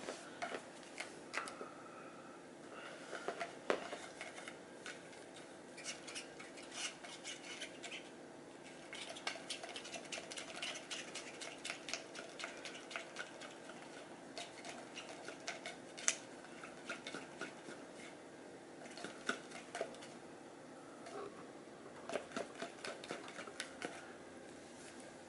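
A cat biting and pawing a plastic drinking straw, flicking it against his teeth so that it plucks like a jaw harp. The sound is a string of sharp, irregular clicks in quick runs with short pauses.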